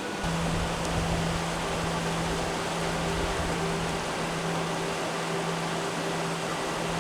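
A steady rushing noise with a held low musical note underneath. The note drops a little in pitch just after the start, where the sound gets slightly louder.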